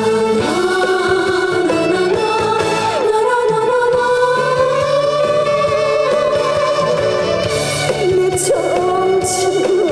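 A woman singing a Korean song into a handheld microphone over amplified band accompaniment; her voice comes in about half a second in, after an instrumental passage.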